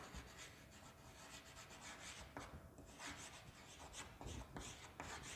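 Chalk scratching faintly on a chalkboard as a word is written out in short, irregular strokes.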